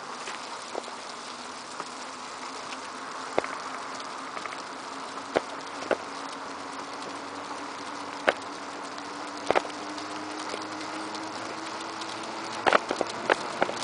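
Steady rolling noise of wheels on asphalt while being towed along by the dog, with a faint hum that rises slightly and a few sharp clicks scattered through.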